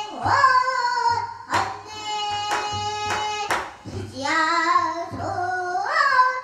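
A young girl singing pansori, a sung phrase with long held notes that waver and slide, with a few sharp knocks in the accompaniment around the middle.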